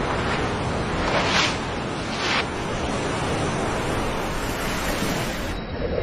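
Ocean surf: a steady rushing wash of waves, with two brief louder surges about one and two seconds in.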